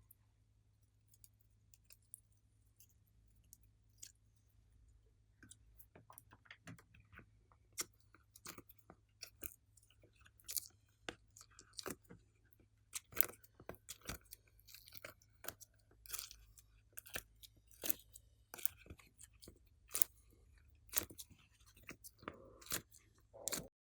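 Glossy slime being squished and stretched by hand, making irregular sticky clicks and pops. They are sparse at first and come thick and fast from about six seconds in, stopping suddenly just before the end.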